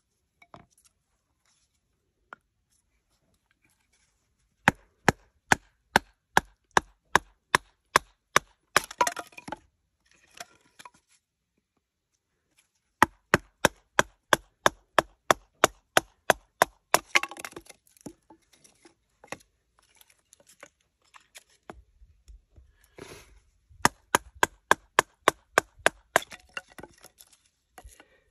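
Knife batoned through a stick of wood: a baton strikes the spine of a puukko knife about three times a second in three runs of a few seconds each. After the first run there is a dense crackle of the wood splitting and splintering.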